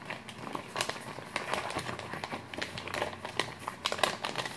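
Crinkling and rustling of sheet-mask packets being handled, a quick irregular run of small crackles.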